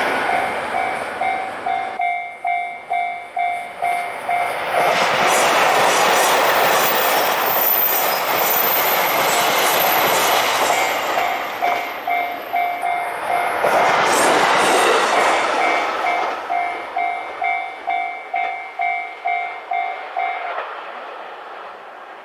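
A Japanese railway level-crossing alarm rings its electronic two-tone clang about two to three times a second while a diesel train passes over the crossing. The alarm stops a couple of seconds before the end, and the train noise fades away.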